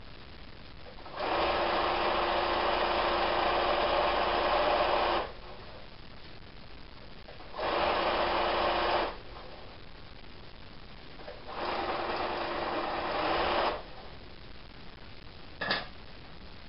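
Electric sewing machine stitching fabric in three runs, a long one of about four seconds and then two shorter ones, with pauses between. A single sharp click comes near the end.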